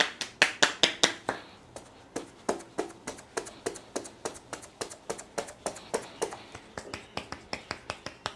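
Barber's hands tapping and slapping the head in a rhythmic Indian head massage: a fast, even run of crisp claps, about five a second, loudest in the first second.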